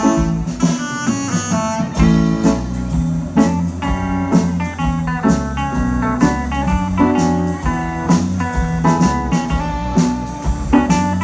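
Live swing band playing an instrumental break with no singing, a guitar prominent over a steady beat.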